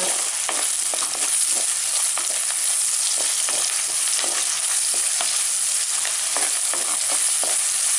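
Small onions (shallots) sizzling in hot oil in a clay pot, with a wooden spatula stirring and scraping them in irregular strokes about twice a second.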